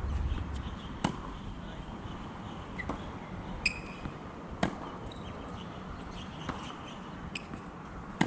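Tennis balls struck by rackets and bouncing on a hard court during a rally: sharp single pocks every one to two seconds, some close and loud, others fainter from the far end of the court. A brief high squeak comes with one of them about three and a half seconds in.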